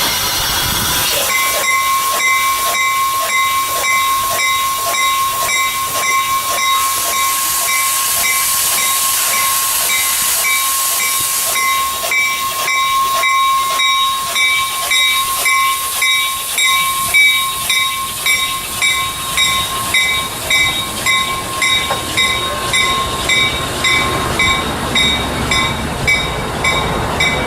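Passenger train pulling into the station, with a hissing rush for the first dozen seconds, while a bell rings steadily about once a second throughout.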